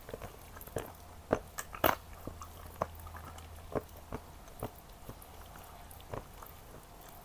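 Close-miked eating sounds of Jordanian mansaf (lamb, rice and yogurt sauce) being chewed: irregular wet clicks and smacks, loudest twice in the first two seconds.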